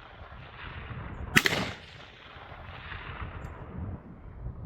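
A single gunshot about a second and a half in, its echo trailing off over the next half second, fired at steel targets during a 2-gun match stage.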